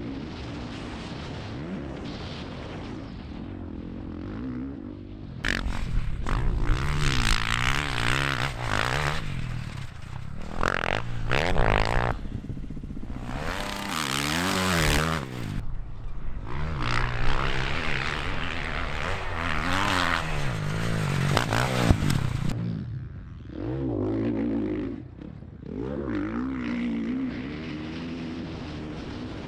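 Dirt bike engine being ridden, its pitch rising and falling again and again as the throttle opens and closes. From about five seconds in to about twenty-two seconds it is much louder and harsher, then it drops back to quieter running.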